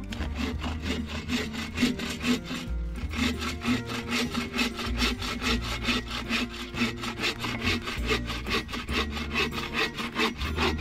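Folding bow saw cutting through a dead branch with quick, even back-and-forth strokes, each stroke a rasp of teeth through wood.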